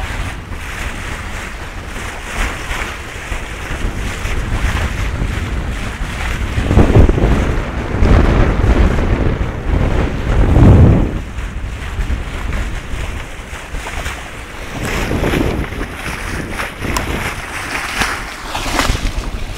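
Wind buffeting the microphone over water rushing and splashing along the hull of a sailboat under sail, with two heavy gusts about a third and halfway through.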